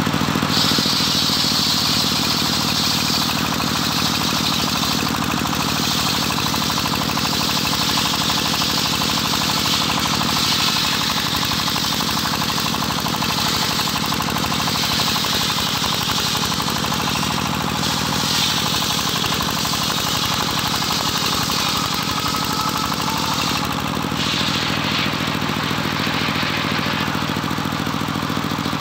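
Homemade engine-driven circular saw bench ripping a johar log. The engine runs steadily throughout, and the blade's high cutting hiss rises and drops back in stretches of a few seconds as the log is fed through.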